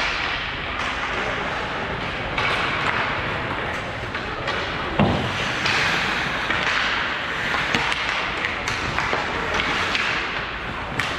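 Hockey game play: a steady wash of rink noise with frequent sharp knocks of sticks and puck, and a heavier thud about five seconds in.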